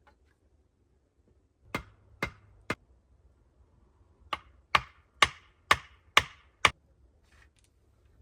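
Hard strikes on wood: three blows, a pause, then six more at about two a second, as in hammering or chopping.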